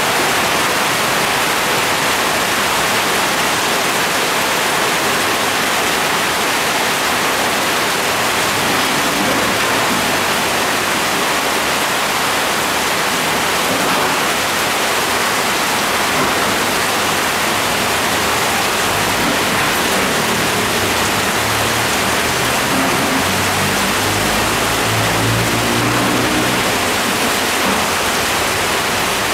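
Heavy rain falling steadily, an even, dense hiss. A low rumble swells and fades in the second half.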